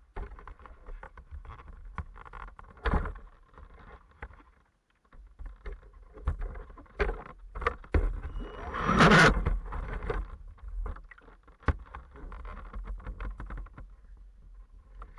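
Water splashing and sloshing with knocks and rubbing against the hull of a swamped RC speedboat as it is handled at the water's edge, heard through a camera mounted on its bow. The loudest, longest splash comes about nine seconds in.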